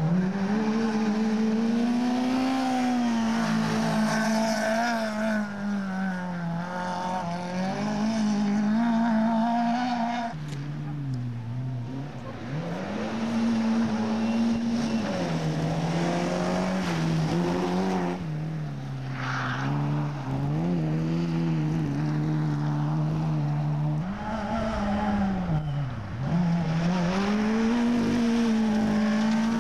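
Rally car engines revving hard as several cars pass one after another, each engine note climbing and dropping in pitch again and again.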